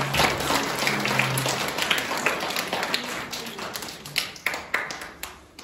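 Audience applauding. The applause thins to a few scattered claps near the end and dies away.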